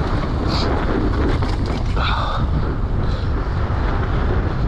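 Wind buffeting the microphone as a mountain bike descends a downhill trail at speed, a steady low rumble with the faint clicking and rattling of the bike on rough ground mixed in.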